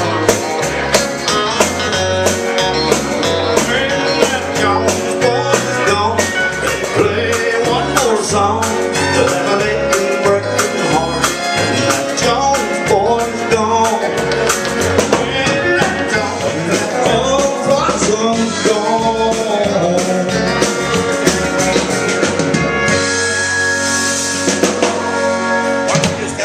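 Country band playing live: drum kit keeping a steady beat under a moving bass line and guitar, finishing on a held chord that stops near the end.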